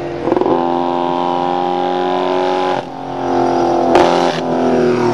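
Vintage racing motorcycle engine running at high, steady revs as it approaches. Its note drops off about two and a half seconds in, then builds up again, with a sharp crack near the end.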